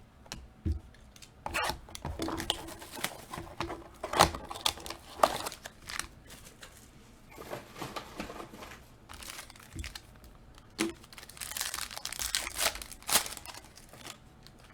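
Plastic wrapping being torn and crinkled as a sealed box of basketball trading cards is opened, with scattered rustles and sharp taps from the box and cards being handled. The rustling is densest near the end.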